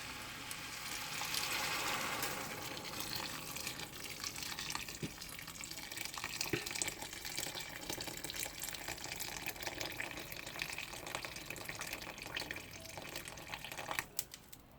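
Hot water poured into a hot pan of frying mung beans, loudest about one to two seconds in, then the pan crackling and sizzling as it heats toward a boil.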